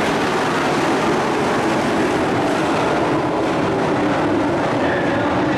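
A field of dirt-track race trucks running at speed around the oval, several engines overlapping in one loud, steady drone.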